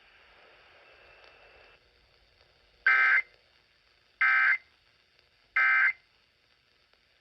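Emergency Alert System end-of-message (EOM) data bursts received off a radio broadcast: three identical short, buzzy digital tone bursts a little over a second apart, signalling the end of the alert test. Faint radio hiss before the first burst.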